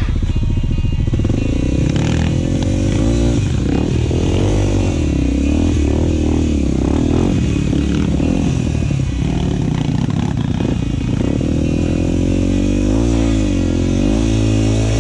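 Single-cylinder four-stroke dirt bike engine under way, its revs rising and falling over and over as the throttle is worked.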